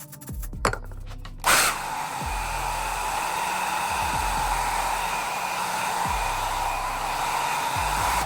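A handheld blow dryer switches on about a second and a half in and blows with a steady hiss until the end. It is drying Got2b glue on the wig's lace at the sideburn to make the glue tacky. Background music plays underneath.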